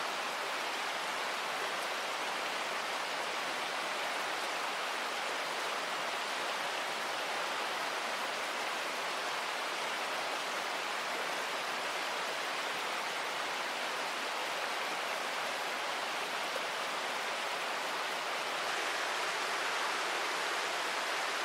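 Steady rushing of a fast-flowing river, an even wash of water noise that swells slightly near the end.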